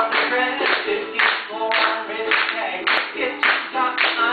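A man singing while strumming a ukulele, with sharp strokes about twice a second.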